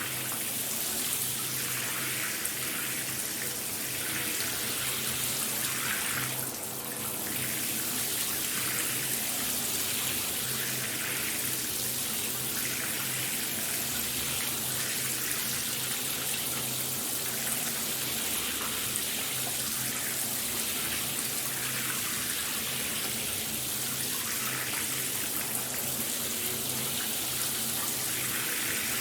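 Shower running: a steady spray of water hissing and splashing, with a faint low hum under it.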